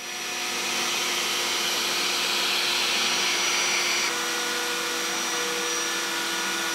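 Shop vacuum and the 710-watt router spindle of a Genmitsu 4040 Pro Max CNC running together steadily, a dense whooshing hiss with a steady whine, while the CNC mills a pocket for a wood inlay. About four seconds in, part of the upper hiss drops away and the pitch of the whine shifts slightly.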